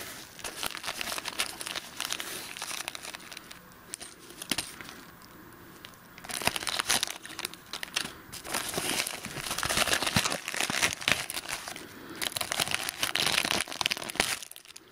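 A paper shipping mailer and small clear plastic bags crinkling and rustling as they are handled. The crackle comes in irregular bursts, with a quieter stretch about five seconds in.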